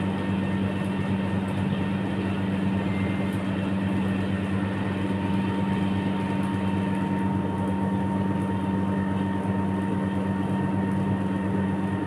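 Steady low machine hum with a few held tones, unchanging throughout.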